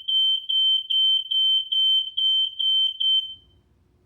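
TP-Link Tapo smart hub sounding its fourth alarm tone: a high-pitched beep repeating about two and a half times a second, like a smoke alarm. It stops about three seconds in.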